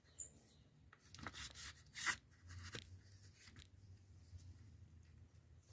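Faint handling noise: a few short rustles and light clicks in the first couple of seconds, the loudest about two seconds in, then near quiet.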